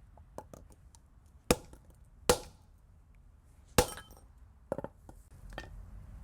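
Sharp metallic knocks and clinks: three loud strikes spread over a few seconds, with lighter clicks between and after them, as a stuck oil filter adapter is worked loose with tools.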